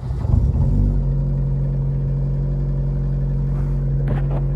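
Lada Priora's 16-valve 1.6-litre four-cylinder engine catching on a cold start after standing overnight, uneven for about a second, then settling into a steady idle. The owner says its pistons have recently started knocking.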